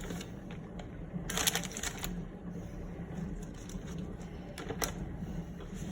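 Kitchen handling noises from assembling the enchiladas: a rustling scrape about a second and a half in and a sharp click near the end, over a steady low hum.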